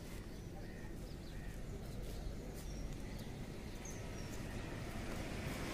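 Faint outdoor ambience: a steady low rumble with a few faint, short bird chirps.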